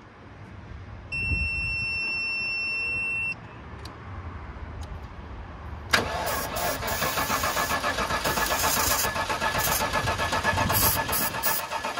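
A steady electronic beep sounds for about two seconds. About six seconds in, the starter motor of a Land Rover Discovery II starts cranking the engine, a rhythmic turning over that does not catch. It is a pretty weak crank, which the owners put down to a super dead battery.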